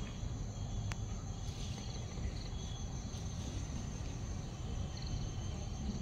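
Insects chirring steadily in a high-pitched drone, over a low, even background noise.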